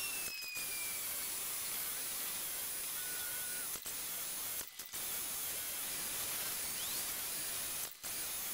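Greenworks electric pressure washer spraying a jet of water onto a truck's cab: a steady hiss that cuts out for a moment three times.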